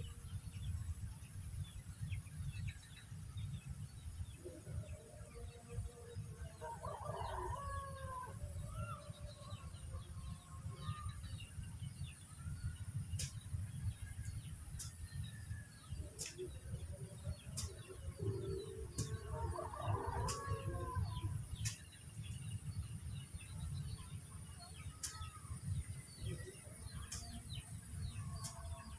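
Roosters crowing twice, about twelve seconds apart, with small birds chirping and a few sharp ticks, over a steady low rumble.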